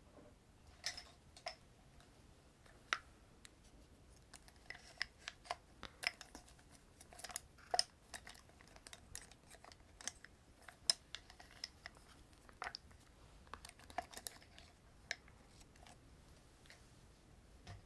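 Light, irregular clicks and taps of small makeup items, a box and a wooden pencil, being handled close to the microphone.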